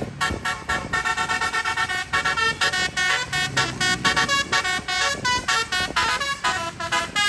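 Indonesian bus Basuri telolet horn, a multi-trumpet musical air horn, playing a fast tune of short notes that jump between pitches with hardly a break.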